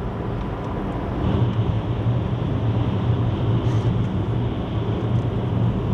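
A car driving on a wet road, heard from inside the cabin: steady engine hum and tyre noise, growing a little louder after about a second.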